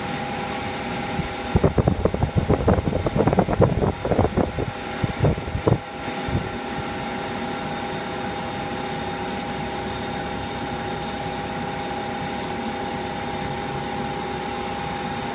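Spray booth extraction fans running with a steady hum and whine. From about 1.5 to 6 s there is loud, irregular rustling and knocking, as coveralls rub against the phone. A little past the middle comes a burst of high hiss of about two seconds from the paint spray gun.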